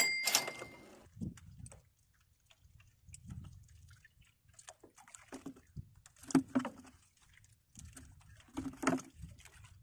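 Crabs being handled and pulled from a nylon mesh net trap: scattered small clicks and rustles of netting and shell, with a sharp click at the start and two louder short knocks about six and nine seconds in.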